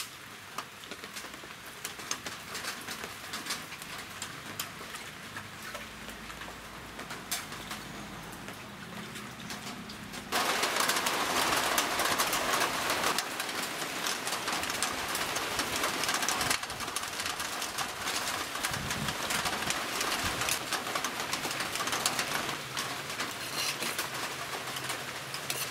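Doves cooing over a steady hiss that suddenly becomes much louder about ten seconds in.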